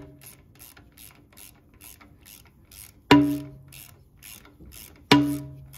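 Ratchet wrench clicking at about four or five clicks a second while backing out a bolt on a bulldozer's rear differential cover. Two loud ringing metal clanks come about three and five seconds in.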